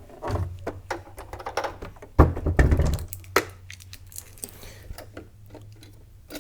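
Clicks and knocks of hands handling a Brother LB5000S sewing machine's plastic body and parts, with one louder thunk about two seconds in.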